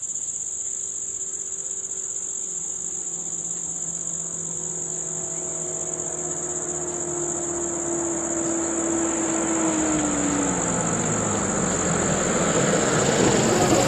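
A steady, high-pitched insect drone, with a vehicle engine approaching and growing louder through the second half, its note falling gradually before the noise swells near the end.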